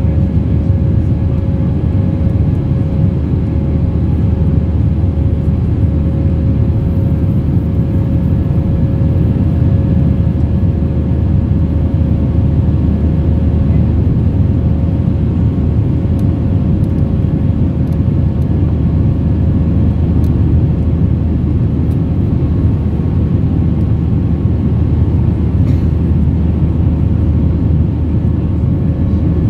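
Cabin noise of an Airbus A320-232 climbing out after takeoff, heard beside the wing: its IAE V2500 turbofan engines and the air over the airframe make a loud, steady low rush, with a constant hum running through it.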